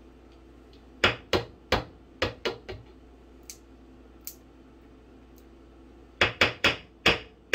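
A metal spoon tapping and knocking against a plastic measuring cup while sticky honey is scraped out of it: a quick run of about six sharp taps, a pause with a couple of faint ticks, then about five more taps near the end.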